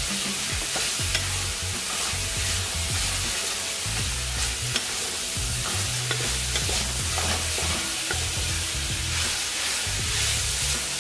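Shredded cabbage and mixed vegetables sizzling steadily in a hot pan as they are stirred and tossed with a wooden spatula, the heat turned up so they fry rather than stew in their liquid. Low background music plays underneath.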